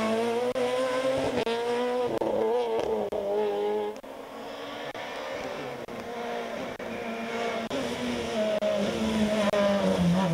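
Peugeot 207 S2000 rally car's naturally aspirated four-cylinder engine at full throttle, the pitch climbing and dropping again and again through gear changes. It goes quieter for a while about four seconds in, then builds louder again as the car comes close toward the end.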